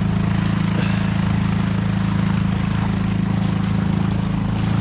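A small engine running steadily at an even speed, with a low, constant hum.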